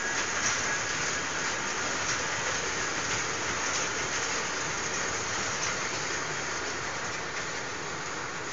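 Open carriages of a small amusement-park train rolling past on a ground-level steel track: a steady hiss of wheels running on the rails with a few faint clicks, easing off slightly near the end as the train moves away.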